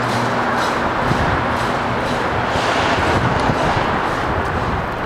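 Freight train of autorack cars rolling past, a steady rumble and rattle of steel wheels on the rails.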